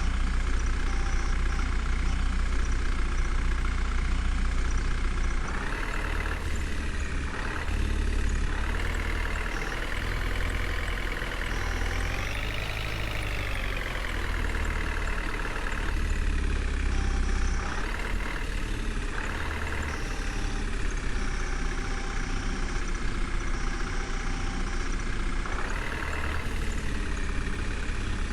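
Diesel engine of a JCB 3DX backhoe loader running while it works. The engine note rises and falls several times, with one clear rev up and back down about halfway through.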